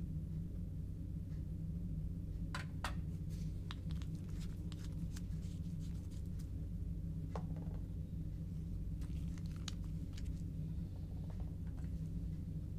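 Scattered small clicks and rustles of gloved hands handling a plastic dropper bottle and a glass test tube, over a steady low hum.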